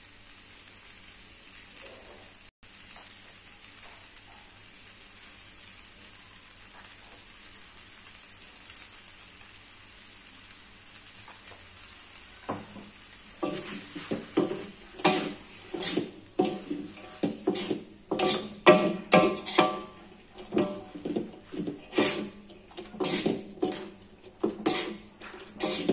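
Yellow noodles frying in an aluminium wok with a faint steady sizzle. About halfway through, a wooden spatula starts stirring and tossing the noodles, scraping and knocking against the wok in repeated strokes about one or two a second.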